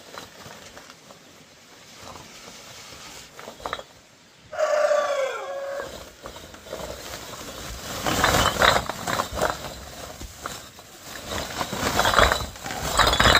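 A rooster crows once about four and a half seconds in, the call dropping in pitch at its end. From about eight seconds on, irregular knocking and clattering of hard objects.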